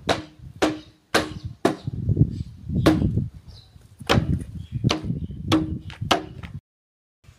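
A series of sharp, irregular knocks, about one or two a second, each with a brief low ringing after it, like something being chopped or struck. The sound cuts out abruptly near the end.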